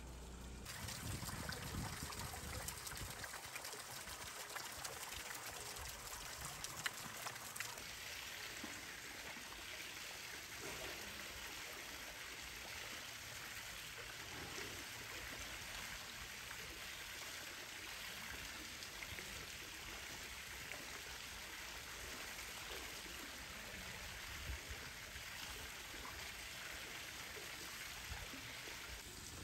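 Steady trickling, running water of a polar bear pool.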